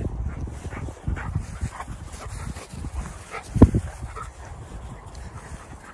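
A dog whining and yipping in short cries while playing with a cat, over low rumbling and handling noise, with one sharp thump a little past halfway.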